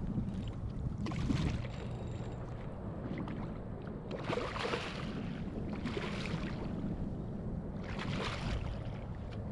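Water splashing and sloshing around a kayak in several short bursts, over a low rumble of wind on the microphone.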